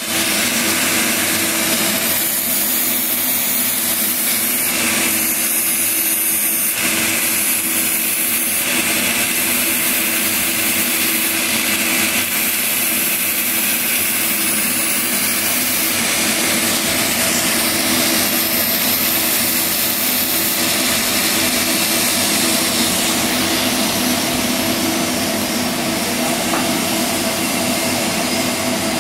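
TIG welding arc running continuously on a steel pipe joint: a steady hiss with a constant hum underneath, the upper hiss rising and easing in stretches as the weld goes on.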